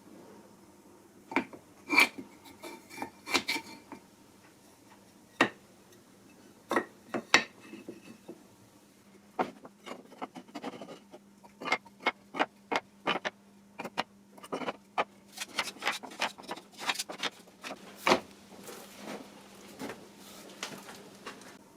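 Workshop handling sounds: an irregular string of sharp clicks and clacks as hard pieces, such as wooden blocks and tools, are knocked together and set down on the bench. The clicks come sparsely at first and closer together after about nine seconds, with a faint steady hum underneath.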